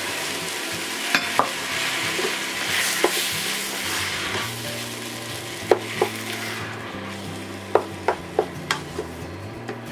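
Chopped tomatoes sizzling in hot oil with fried onion and garlic in a stainless-steel pressure cooker, stirred with a wooden spoon that knocks against the pot about nine times. The sizzle is loudest in the first few seconds and then eases.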